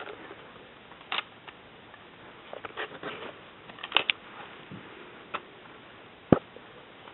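Scattered light clicks and knocks of plastic LEGO parts being handled and tapping together, irregular rather than rhythmic, with one sharper knock near the end.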